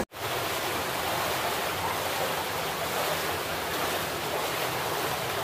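Steady rush of a shallow stream flowing through a narrow rock gorge, an even wash of water noise with nothing standing out.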